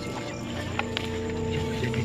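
Background music of long held tones, slowly getting louder, with a few faint clicks.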